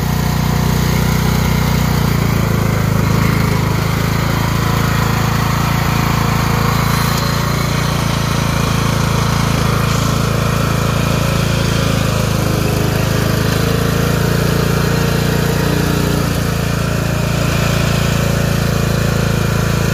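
Lawn tractor engine running steadily as the tractor is driven through brush and mud.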